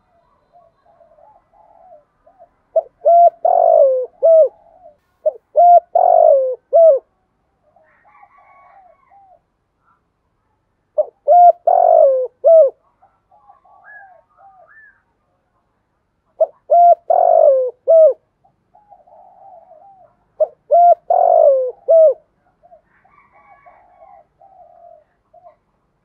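Spotted dove singing its cooing song: five loud phrases of low, curving coos a few seconds apart, with fainter coos between.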